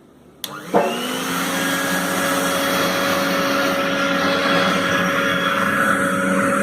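Ultracomb Pionero 20-litre vacuum cleaner and blower switched on: a click about half a second in, then the motor spins up fast and runs steadily with a constant whine.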